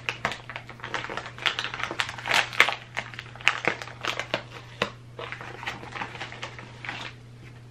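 Jewelry packaging being handled: irregular crinkling and rustling that thins out near the end, over a steady low hum.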